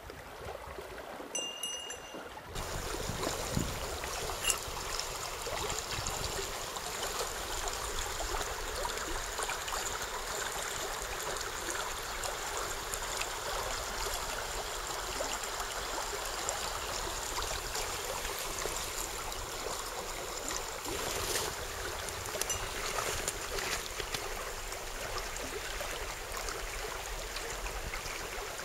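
Mountain stream running steadily over rocks, a constant rushing of water. It comes in abruptly about two and a half seconds in, after a quieter opening with a brief high peep.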